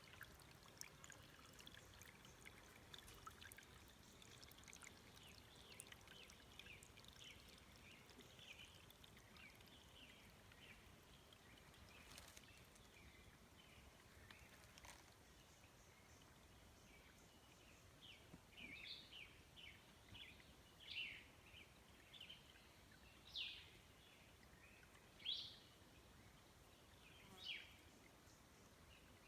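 Faint bird calls: scattered soft chirps, then from the middle on a series of louder short calls about two seconds apart.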